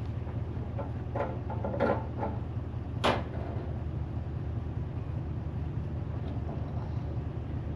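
Diesel tractor engine running steadily, with a few rattling metal clanks between about one and two seconds in and a single sharp clank about three seconds in.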